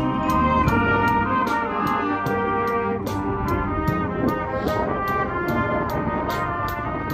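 School wind band playing: brass holding a melody over a drum kit, with a cymbal keeping a steady beat between two and three strokes a second.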